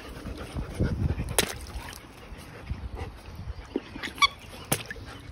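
A dog gives a short, high whine about four seconds in, among a few light knocks and clicks.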